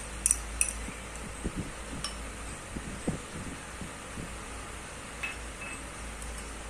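Metal spoon clinking against a china bowl and a glass bowl, a few quick clinks at the start, then soft knocks and a faint clink as yogurt starter is gently stirred into warm milk. A steady low hum runs underneath.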